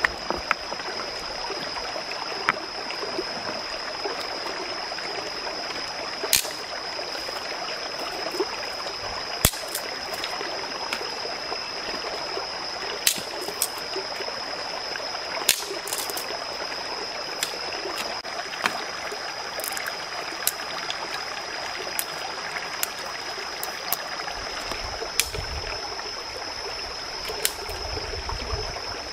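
Stream running over rocks, a steady rushing with a steady high-pitched whine on top. A dozen or so sharp clicks and knocks are scattered through it, as stones and dry sticks are set down on the rocks.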